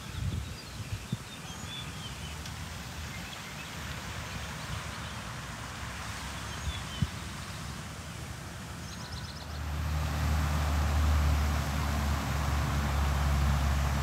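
Outdoor ambience with scattered bird chirps. About nine and a half seconds in, a louder, steady low rumble with hiss sets in.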